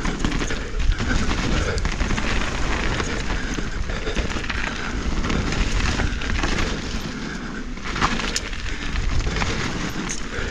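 Mountain bike on 29-inch Maxxis Assegai tyres rolling fast down a dirt trail: a steady rush of tyre and wind noise with rattles from the bike. A few sharp knocks stand out, the clearest about eight seconds in and near the end.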